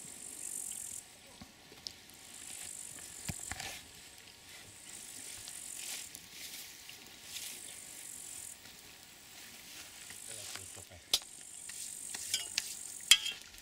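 Insects chirring in the grass in short high-pitched patches that come and go, and near the end a metal spoon stirring in an aluminium mug, clinking sharply against its side a few times.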